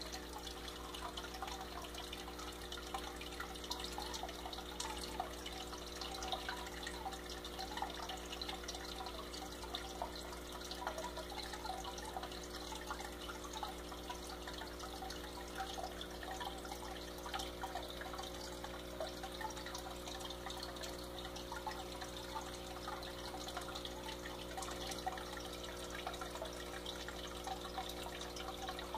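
Aquarium water trickling and bubbling steadily, over a constant hum from the tank's equipment.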